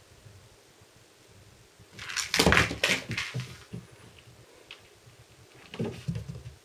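A kitten scrambling after and batting at a toy mouse: a loud burst of scuffling knocks about two seconds in, lasting a second or so, then a shorter, softer burst near the end.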